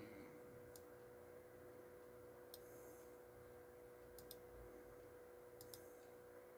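Near silence: faint room tone with a steady hum and a few faint, sharp clicks at the laptop, including two quick double clicks.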